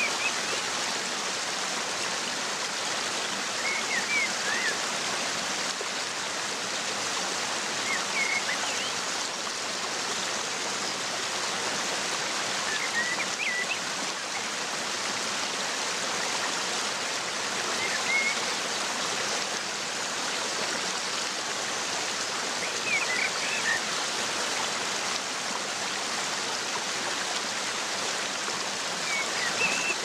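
Waterfall rushing steadily into a pool, a constant even hiss of falling water. Short high-pitched chirps come through about every four to five seconds.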